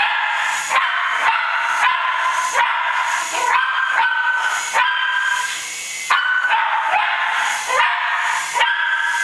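Cairn terrier barking over and over in high, yappy barks, about three every two seconds, with a faint steady high whine from a small toy helicopter's motor underneath.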